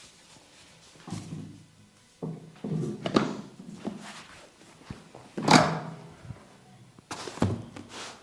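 Hands striking a person's back in massage: a series of heavy slaps and thumps at irregular intervals, the loudest about two-thirds of the way through.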